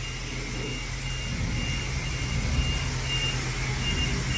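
Vehicle reversing alarm beeping steadily, about two beeps a second, over a low engine rumble that grows louder about a second and a half in.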